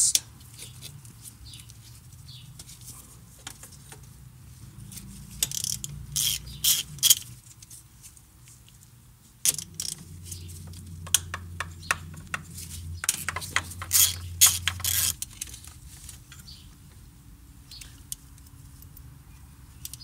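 Hand socket ratchet clicking in short runs, about five seconds in and again more densely through the middle, as the 12 mm nuts holding a throttle body are loosened.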